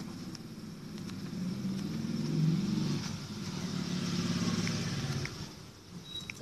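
A motor vehicle engine running, swelling and then fading away near the end, with a few short clicks near the end as the phone keyboard is tapped.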